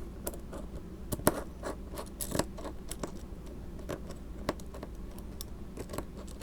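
Small aluminium beams, brackets and metal screws being handled and fitted together: a run of light metallic clicks, taps and scrapes, with two sharper clicks about a second in and near two and a half seconds.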